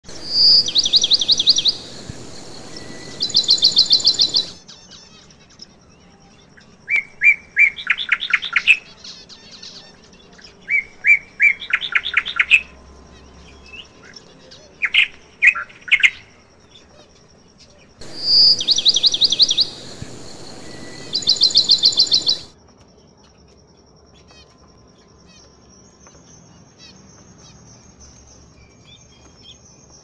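Finches chirping in bursts of rapid, high trilled notes separated by pauses. The same long trilled phrase comes at the start and again about eighteen seconds in, and the chirping fades to faint scattered notes over the last several seconds.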